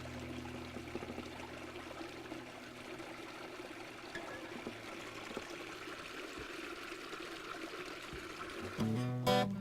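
Running water of a small stream, trickling steadily. The song's last low held note dies away under it at the start, and an acoustic guitar strum comes in near the end.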